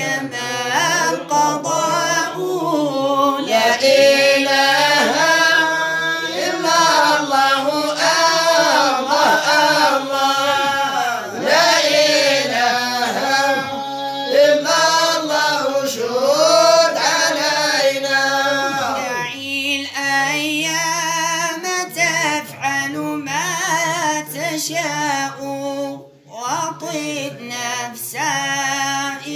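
Arabic Prophetic praise song (madih nabawi) being sung, in long ornamented vocal phrases that bend up and down in pitch, with a brief breath pause near the end.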